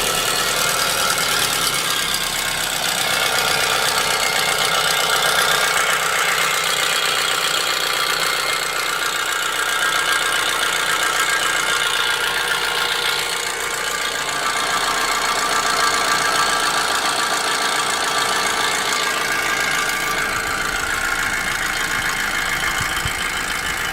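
Audi A4 B7 2.0 Turbo FSI inline-four engine idling steadily with a fast, dense rattle, 'more like a tractor'. The owner has checked the timing and cam positions and does not believe the timing is at fault, but cannot find the cause.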